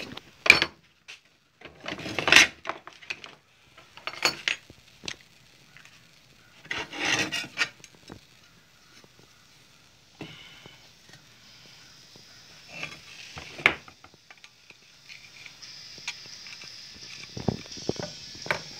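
Hand work on thin white plastic pipes with small tools on a workbench: short bursts of rubbing and scraping, then a few sharp knocks. A faint steady high hiss runs underneath in the second half.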